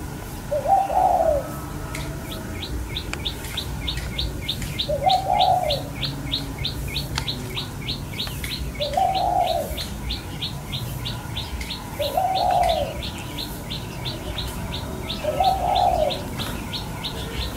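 A dove cooing five times, one short call every three to four seconds, while from about two seconds in a small bird chirps in a fast, even run of high notes.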